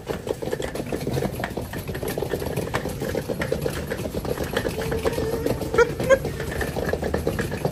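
Hard-shell suitcase's wheels rolling over brick paving, a steady fast rattle from the pavers' joints, with two louder knocks about six seconds in.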